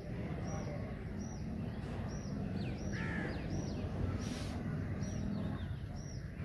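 A crow cawing once about three seconds in, over a steady low outdoor rumble, with a thin high chirp repeating about every three-quarters of a second.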